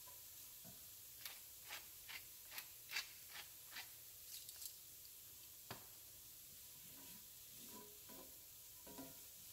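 Faint clicks and scrapes of a wooden spoon against a cast-iron skillet as diced onion, celery and bell pepper are stirred. About ten light knocks come roughly twice a second in the first half, then softer scraping near the end.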